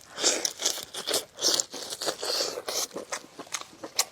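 Close-miked chewing and crunching of food: irregular crisp bites and mouth noises, with a few sharp clicks.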